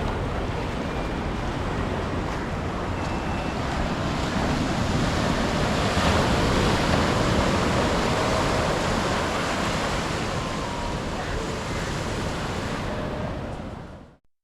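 Sea surf washing steadily, with wind on the microphone, fading out just before the end.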